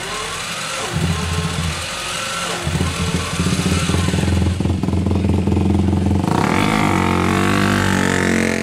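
Small race motorcycle being started on a rear-wheel roller starter: the engine catches about a second in and runs at a steady low note, then revs rise in pitch near the end as the bike pulls away.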